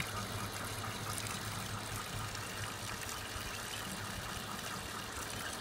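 Natural spring water trickling steadily, with a faint low hum underneath.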